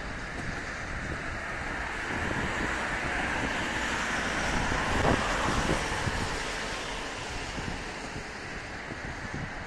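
Wind rushing over the microphone, with the distant running of an approaching train beneath it. The rushing swells in the middle and eases toward the end.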